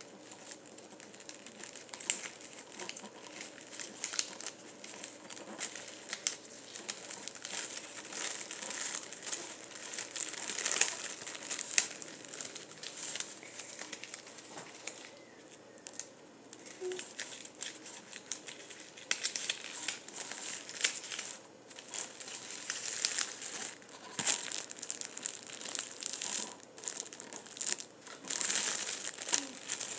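Clear plastic bags crinkling and rustling as popcorn balls are wrapped in them by hand, an irregular crackle of many small ticks with a short lull about halfway through.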